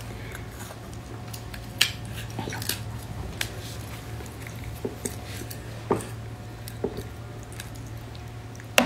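Wet squishing and small clicks of abalone meat being pried and pulled from its shell by hand, a few separate handling sounds over a low steady hum.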